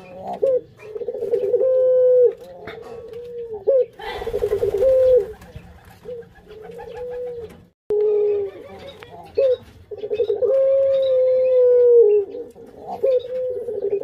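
Barbary doves (domestic ringneck doves) cooing over and over: long, slightly falling coos, each ending in a short upward note. About four seconds in there is a brief rustling noise.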